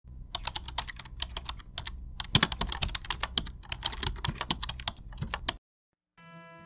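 Computer keyboard typing, a quick irregular run of key clicks that stops suddenly about five and a half seconds in. Acoustic guitar music starts just after.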